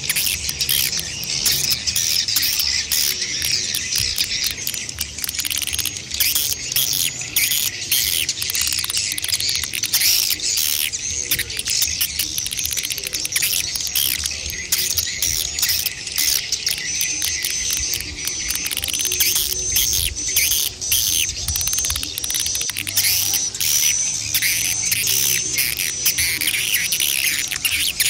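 Swiftlets calling, a dense, continuous twittering chorus of high chirps made up of adult and chick calls, the kind of sound used to lure swiftlets to a nesting house. About halfway through, a regular string of short, evenly repeated chirps comes in over the chatter.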